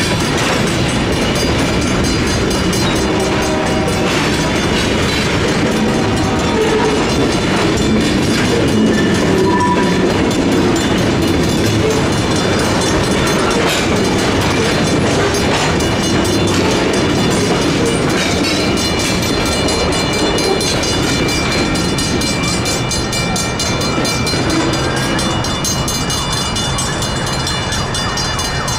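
Freight cars (tank cars and covered hoppers) rolling through a grade crossing, wheels clattering over the rails, while the crossing's Safetran hybrid bells ring steadily.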